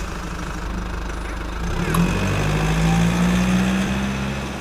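A vehicle engine running steadily, its pitch rising a little about two seconds in and then holding.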